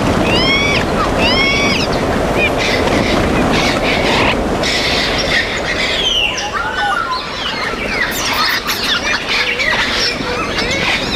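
Parrots squawking and whistling over one another: many short arching calls on top of a constant busy chatter.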